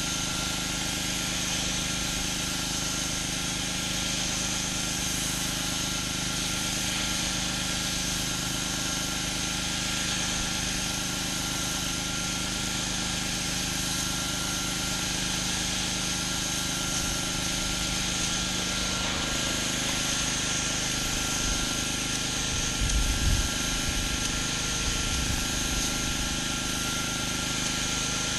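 Gas-engine pressure washer running steadily under load, with the constant hiss of high-pressure water spraying onto concrete. A few dull low bumps come near the end.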